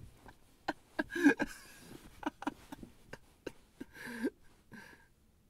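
A man chuckling quietly in short, scattered breathy bursts.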